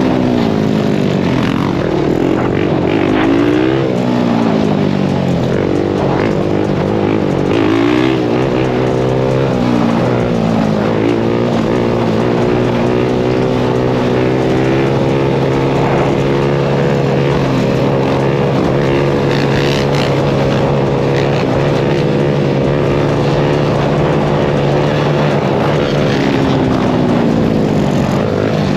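Sport quad engine running under way, revving up and falling back in pitch again and again with the throttle and gear changes. Other quad and dirt bike engines run alongside it, making a steady drone.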